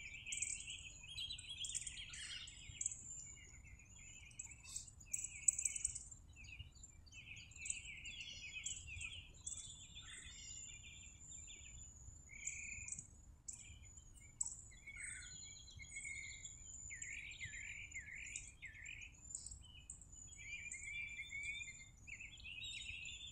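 Songbirds chirping and trilling faintly, many short calls overlapping throughout, some with a thin, very high chirp.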